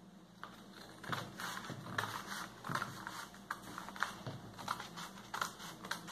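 Scissors cutting through folded brown kraft pattern paper: an irregular run of quick snips and paper crunching, starting about a second in.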